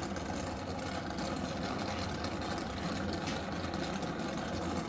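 Oxy-acetylene torch flame burning with a steady roar while it heats copper pipe for brazing. The flame is turned up with a little more oxygen, so it roars a little.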